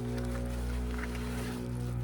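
Background music with sustained low notes.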